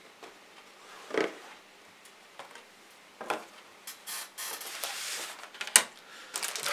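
Cardboard model-kit box being handled and opened: a few soft scrapes and taps as the lid comes off, a sharp knock near the end, then plastic parts bags beginning to crinkle.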